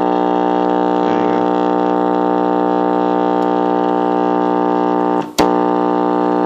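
Lloyd's 1J61G-131A flip clock radio's buzzer alarm going off: a loud, steady, harsh buzz, broken once by a short gap and a click about five seconds in.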